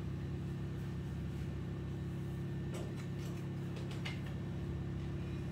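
A steady low hum, with a few faint light taps about three and four seconds in as bread is pressed into a small foil tin.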